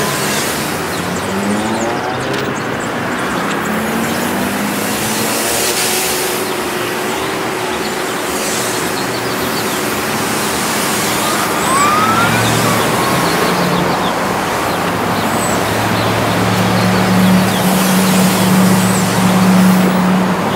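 Street traffic: a steady wash of passing cars, with a vehicle accelerating through its gears early on and a low engine hum from about halfway through.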